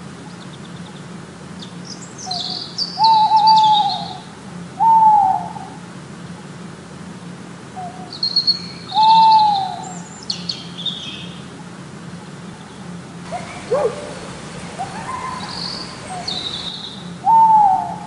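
Owl hooting: single short hoots, each rising and then falling in pitch, repeated every few seconds. Small birds chirp high above them twice.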